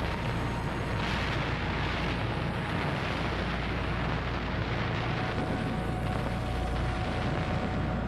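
Battle sound effects: a steady, dense rumble of artillery and explosions, with no single shot standing out.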